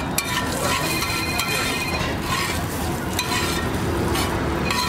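Metal utensils scraping and clinking on a large iron tawa griddle in repeated short strokes, over a steady frying sizzle.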